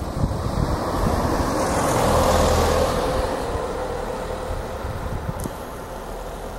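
A car passing by, its engine and tyre noise swelling to a peak about two and a half seconds in and then fading away.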